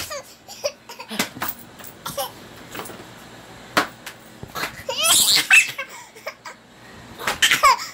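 Toddler laughing in short high-pitched bursts, loudest about five seconds in and again near the end.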